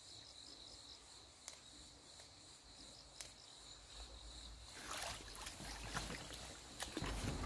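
Faint, steady high-pitched chirring of insects. About five seconds in, rustling and light splashing start as a person wades in flooded weeds and handles an inflatable boat, and a low steady rumble comes in near the end.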